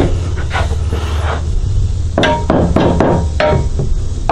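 Hammer knocking on the glued wooden frame joint of a 2x4 cart: a run of sharp knocks, weaker at first and then louder and quicker from about two seconds in, each with a short ring.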